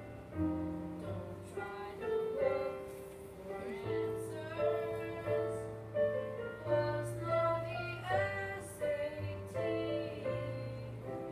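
A child singing a song over piano accompaniment, with a steady bass line under held piano notes.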